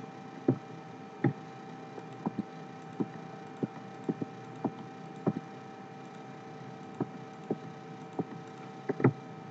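Irregular clicks from a computer mouse and keyboard, a dozen or more short sharp clicks over a steady electrical hum with a faint constant tone.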